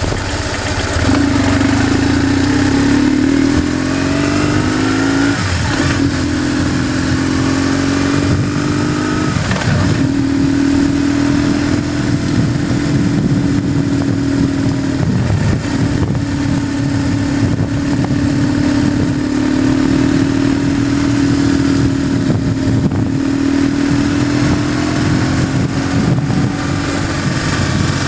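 BMW GS motorcycle engine running under way, heard from on board: its note climbs twice through the first ten seconds, breaking briefly at each gear change, then holds fairly steady with a few short dips. Wind rushes past throughout.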